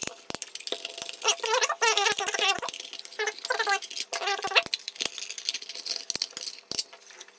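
Tight screws squeaking as a precision screwdriver backs them out of a black plastic sprinkler-controller housing. There are several short runs of squeaks, mixed with light clicks and taps of the tool and screws.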